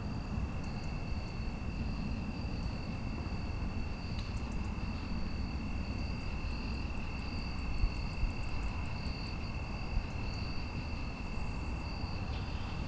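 Night ambience: insects trilling steadily on two high pitches over a low, constant rumble, with a quick run of high ticks, about five a second, around the middle.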